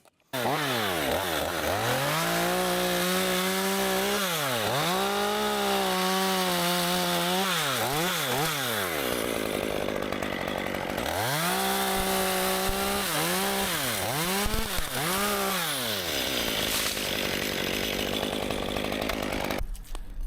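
Chainsaw cutting into dead ash wood: the engine revs up to full throttle with several quick dips and pulls back, drops to idle twice, and cuts off just before the end.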